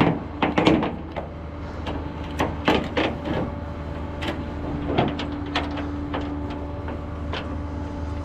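Tow truck engine running with a steady hum. A loud clunk comes right at the start, then scattered knocks and rattles from the towing gear, which the driver takes for the tow hook settling as it slid a little up the arm.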